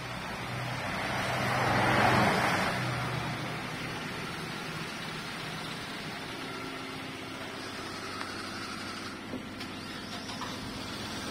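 A road vehicle passing, its noise swelling to a peak about two seconds in and fading away, with tyre hiss on the wet road. After it, a steady low hum with a few faint ticks.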